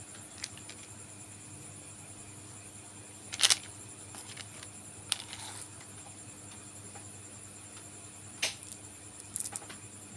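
Crickets chirping steadily, with a few short rustles and taps of candy packets and small candies being handled, the loudest about a third of the way in.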